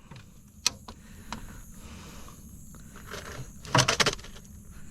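A couple of faint single clicks, then a short rattle of several quick knocks about four seconds in, over a low steady hiss.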